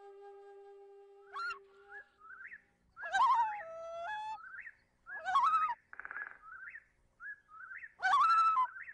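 Bird calls on a background music track: short rising chirps and three louder warbling, whistled calls a couple of seconds apart, with a brief fast trill between them. A held flute note fades out about two seconds in.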